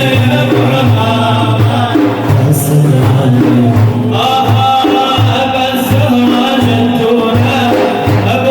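Sufi devotional praise music: frame drums keep a steady beat under a melodic line that settles into a long held, wavering note about halfway through.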